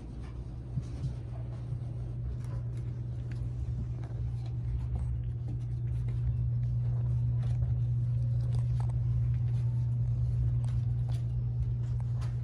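A steady low hum that slowly grows louder, with scattered light clicks and scratches of puppies' paws scrabbling on a plastic-covered pen floor.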